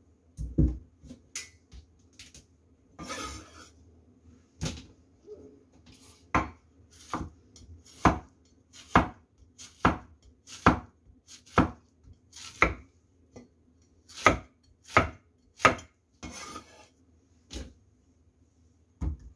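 Kitchen knife chopping a peeled cucumber on a thick round wooden chopping board: sharp knocks of the blade striking the wood, a few scattered at first, then a steady run of cuts a little more than one a second. A short scraping sound comes about three seconds in and again near the end of the run.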